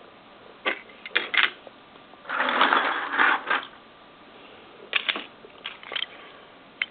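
Die-cast toy cars being handled: a few light clicks and clinks, a scraping rustle lasting about a second, then more clicks near the end.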